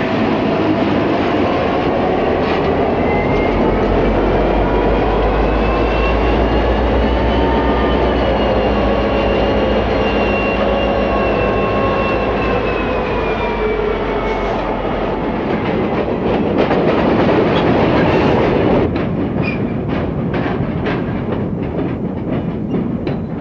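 Diesel freight locomotives rolling slowly past at close range, their engines running with a whining tone that rises and then falls. About 19 seconds in, repeated sharp clacks of rail wheels over the switch and rail joints take over.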